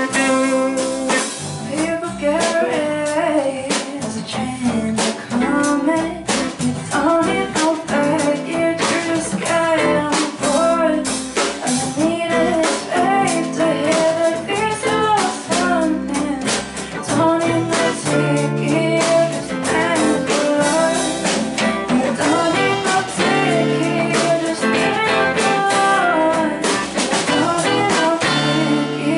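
A live band playing a slow soul song: electric and twelve-string acoustic guitars, bass guitar and drum kit, with a woman singing the melody.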